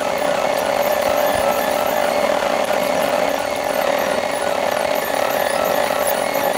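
Dashcam recording of car cabin road and engine noise, sped up twenty times into a steady buzzing drone.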